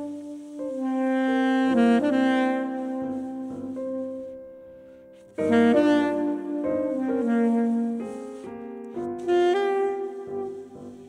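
Soprano saxophone and grand piano playing jazz as a duo; one phrase dies away and a new loud entry comes in about five seconds in.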